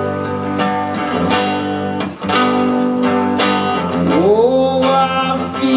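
Guitar strumming chords in a steady rhythm, with a sung note that glides up and is held about four seconds in.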